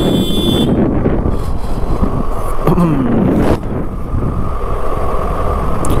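Wind rushing over the microphone of a moving motorcycle, with road noise underneath. A brief falling tone about three seconds in.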